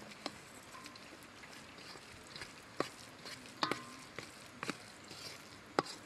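A metal spoon stirring a thick, wet walnut, onion and egg mixture in a stainless steel bowl, with squelching mixing and half a dozen sharp clinks where the spoon strikes the bowl's side.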